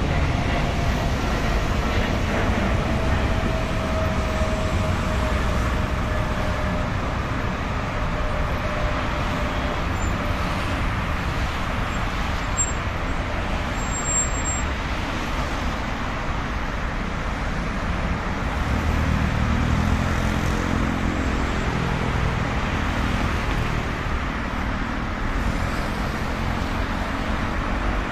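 Steady roar of dense road traffic from a busy highway, mixed with a departing jet airliner climbing away, its faint whine sliding slowly down in pitch over the first several seconds. A heavy vehicle's low engine hum rises about two-thirds of the way through.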